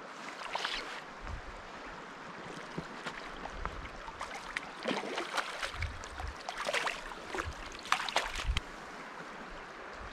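Steady rush of a riffled river current, with short bursts of splashing as a hooked rainbow trout thrashes at the surface.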